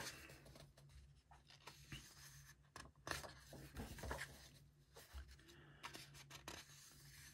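Paper pages of a colouring book being turned and smoothed by hand: faint, scattered rustles and soft scrapes, over a steady low hum.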